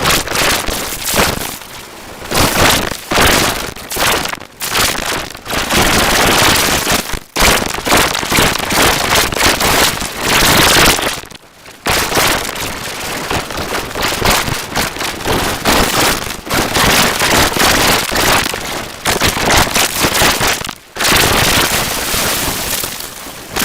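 Harsh, crackling, noise-like audio from the vending-machine clip run through heavy distortion effects. The voices and kicks are smeared into loud, choppy static with a few brief dropouts, and no words can be made out.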